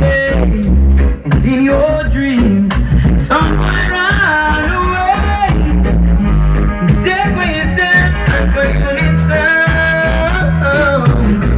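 Music with a singing voice over a heavy, steady bass line, played loud through a sound system.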